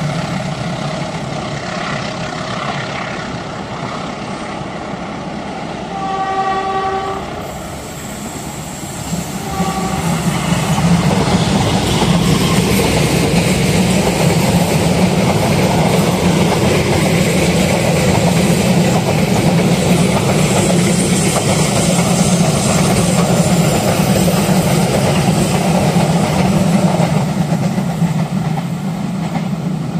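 Diesel-hauled Taksaka Tambahan (Borobudur) express passing close by. The locomotive's horn sounds one blast about six seconds in and a short toot near ten seconds. Then the engine and the coaches' wheels rumble and clatter by for most of the rest, easing near the end.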